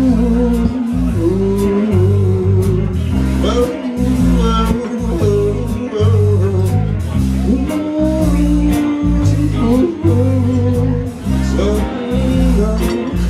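A band playing the opening of a blues song: bass and guitar over a steady drum beat, with a lead line that bends and slides in pitch.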